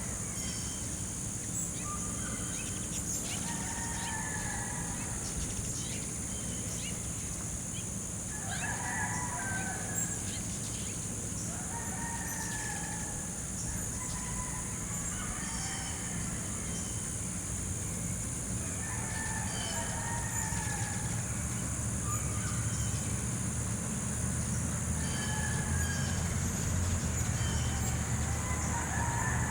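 Steady high-pitched insect chorus, with a bird calling in short phrases over it about every three to four seconds.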